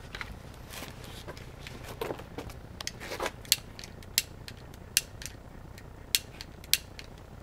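Cheap long-nosed utility lighter's piezo igniter clicking repeatedly, about six sharp clicks in the second half, without a flame catching. Some rustling and handling noise comes before the clicks.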